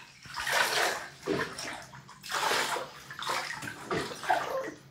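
Water from a handheld shower sprayer spraying and splashing in a bathtub as a Labrador puppy is rinsed, swelling and dropping in about four uneven gushes.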